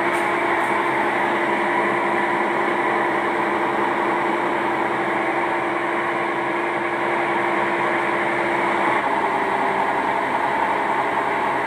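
Whirlpool top-load washing machine spinning with an abnormal, loud steady mechanical noise and a hum that drops out about nine seconds in. The technician takes the noise to come from the agitator; it is traced to the loose nut that holds the drum.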